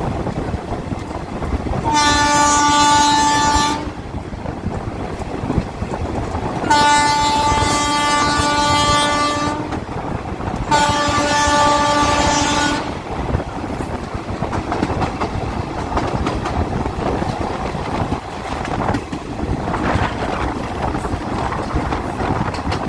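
Train horn sounding three long blasts of about two to three seconds each. Beneath and after them is the steady rumble and clatter of the passenger coaches rolling on the rails as the train leaves a station.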